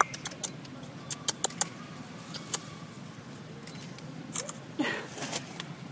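Scattered light clicks and rustles from macaques moving about right next to the camera, with a short scuffling rustle about five seconds in.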